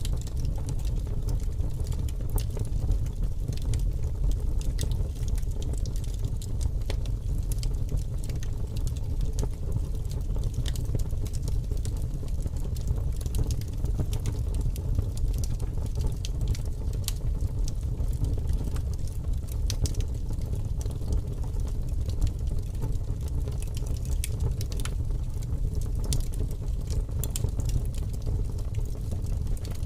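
Wood fire burning in a fireplace: a steady low rumble with scattered sharp crackles and pops.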